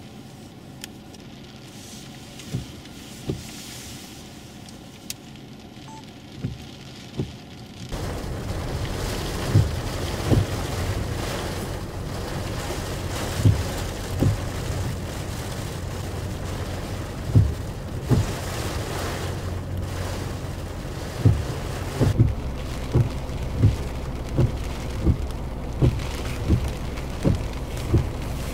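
Hurricane Maria's high wind and heavy rain, fainter at first and much louder and fuller from about eight seconds in, with many short sharp thumps throughout.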